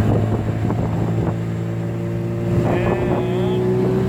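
20 hp Mercury outboard motor with a hydrofoil fin running steadily under throttle, driving a small boat loaded with two people at the stern, as a test of whether it gets up on plane.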